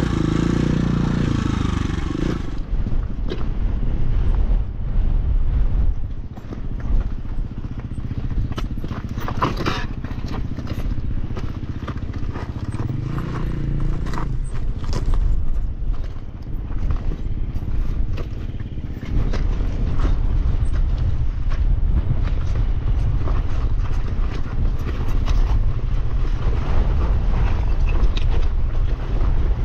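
Dirt bike engine running at low revs over rocky singletrack, with rocks and the bike clattering and knocking. The revs rise briefly a little after 12 seconds in.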